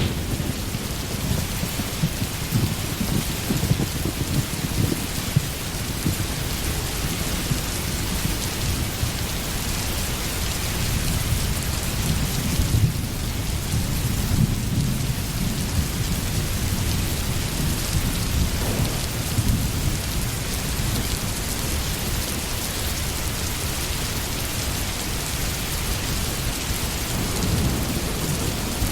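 Steady heavy rain with thunder rumbling low underneath, swelling and fading several times.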